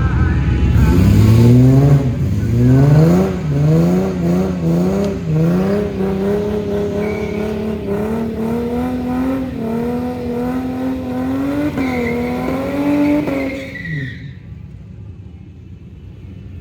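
Car engine at full throttle on a drag-strip run, its pitch climbing in quick repeated rising steps, then holding high and steady before dropping and fading near the end.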